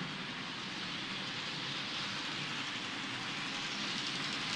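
Model train running on a model railway layout: a model diesel locomotive and its freight wagons rolling along the track, a steady whirring rush of motor and wheels on rails, growing slightly louder as the train comes close.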